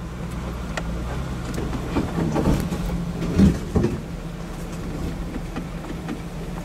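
Jeep engine running at crawling speed on a rocky trail, with scattered knocks and clunks as the vehicle goes over rocks. The loudest clunk comes about three and a half seconds in.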